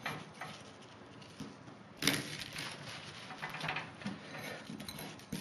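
Soft rustling and light taps of fried dough balls being rolled in granulated sugar in a glass bowl, with a slightly louder scrape about two seconds in.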